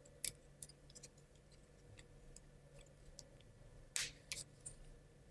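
Light clicks and taps of laser-cut plywood model parts being handled and fitted together by hand, with a louder knock about four seconds in.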